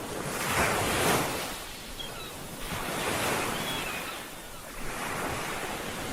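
Ocean waves breaking and washing up on a beach, the surf swelling in surges every two to three seconds, with a few faint high chirps in the middle.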